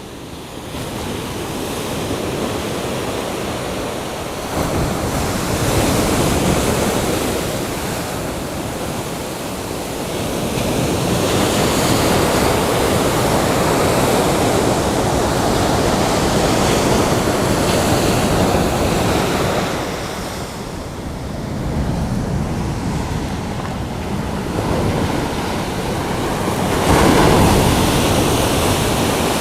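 Ocean surf breaking and washing onto a small black sand beach, swelling and fading several times, with the loudest wave near the end.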